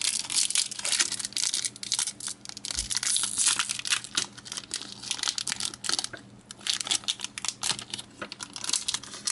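Foil booster pack wrapper of Pokémon trading cards being torn open and crinkled by hand: a dense, irregular run of crackles.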